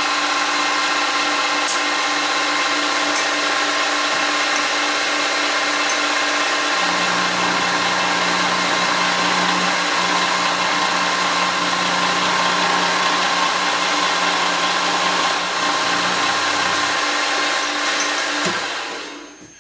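Optimum MB4 milling machine running, its spindle turning a milling cutter that takes a hand-fed facing cut across a raw casting. The steady motor-and-gear whine carries a heavier, lower note from about seven seconds in to about seventeen seconds in while the cutter is in the metal, then the machine winds down near the end.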